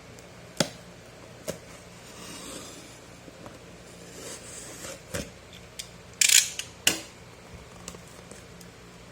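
Shipping package being opened by hand: a few sharp taps and clicks, soft rustling, and a short, loud crinkling or tearing burst about six seconds in.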